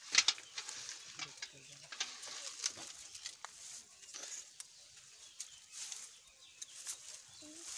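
A wet nylon mesh fishing net being handled and gathered by hand: irregular rustles with many short crackles and taps, the sharpest just at the start.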